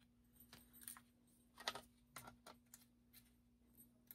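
Faint, scattered clicks and light metallic ticks from handling the parts of a BG-12LX fire alarm pull station while trying to fit its spring onto the plate, the loudest click about a second and a half in.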